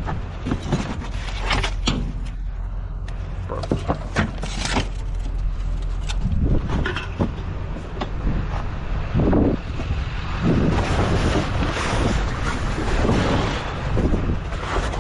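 Scrap and debris being handled in a dumpster: scattered knocks, clanks and rustling over a steady low engine rumble.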